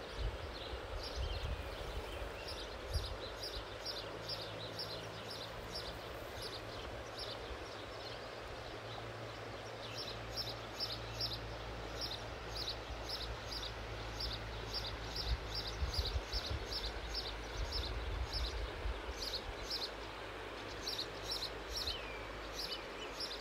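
Steady rush of a shallow river flowing over riffles, with wind rumbling on the microphone. Runs of quick high chirps, about four a second, come and go over it, with an occasional short bird call.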